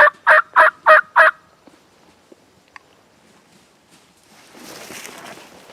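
A loud series of turkey yelps, about three notes a second, ending a little over a second in. Rustling from movement comes up near the end.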